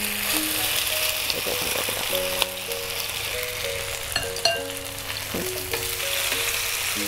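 Marinated chicken pieces sizzling steadily as they fry in oil in a non-stick frying pan, stirred with a wooden spatula that clicks against the pan a few times. Soft background music of single held notes plays underneath.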